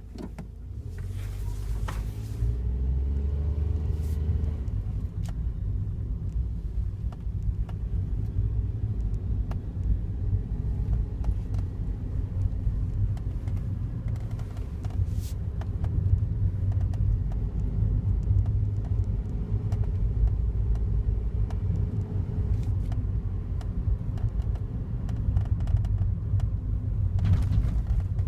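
Daihatsu Wake kei car's three-cylinder engine and drivetrain running with a heavy low rumble, the engine rising in pitch over the first few seconds. Scattered light ticks sound throughout.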